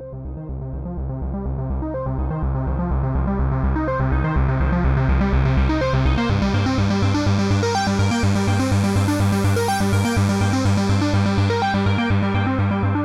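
Electronic synthesizer music with a sustained low bass and a repeating pattern of notes, fading in over the first few seconds.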